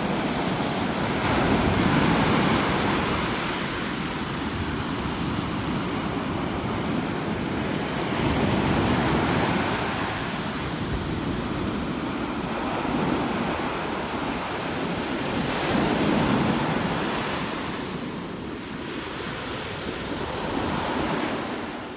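Small sea waves breaking and washing up a sandy shore. The surf noise swells and eases every few seconds, with wind rumbling on the microphone.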